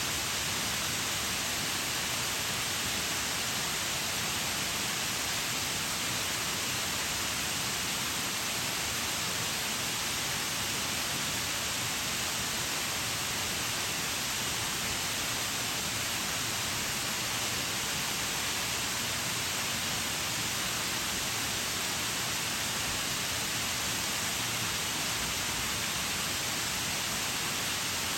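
Waterfall: a steady, even rush of falling water, strongest in the hiss range and unchanging throughout.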